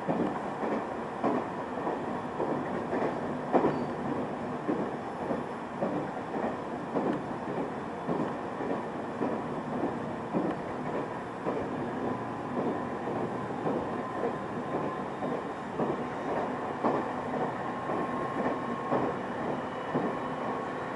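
Passenger train running on the rails, heard from inside the carriage: a steady rumble of wheels and running gear with frequent clicks as the wheels pass over rail joints.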